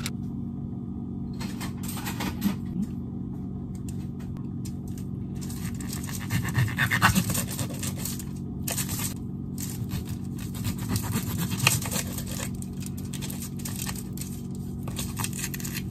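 Kitchen knife cutting a whole mackerel into steaks on aluminium foil: irregular bursts of scraping and crinkling as the blade saws through the fish and presses into the foil, over a steady low hum.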